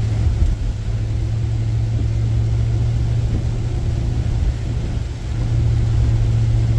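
Steady in-cabin driving noise of a car on a wet highway: a constant low engine and road drone with tyre noise, easing slightly about five seconds in.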